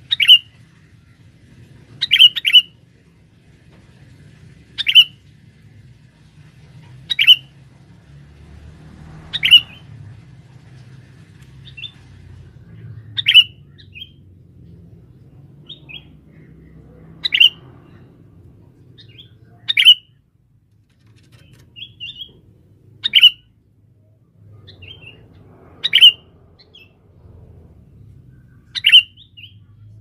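Sooty-headed bulbul (kutilang) giving short, sharp calls about every two to three seconds, some doubled.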